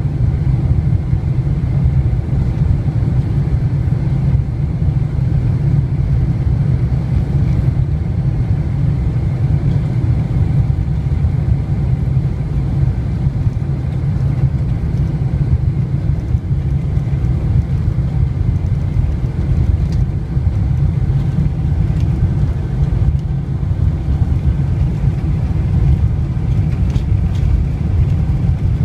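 Steady low rumble of a Boeing 747-400's Rolls-Royce RB211 engines and airflow heard inside the passenger cabin while the airliner taxis.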